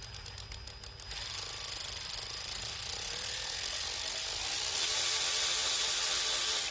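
Hercules extended-reach cordless electric ratchet running free at variable speed. It turns slowly at first with clicks at about eight a second. About a second in its motor speeds up into a steady whine that grows louder, and it cuts off suddenly at the end.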